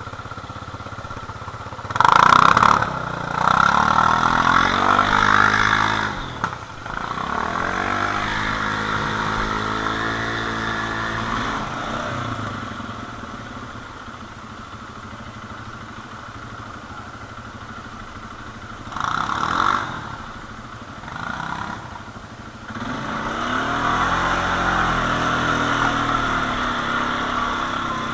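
ATV engine running under load, its pitch rising and falling as the throttle is worked. There are sharp bursts of throttle about two seconds in and again around nineteen seconds, and it pulls harder again near the end.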